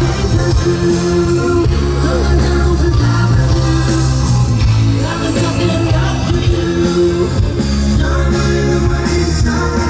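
Live rock band playing, with guitar and singing.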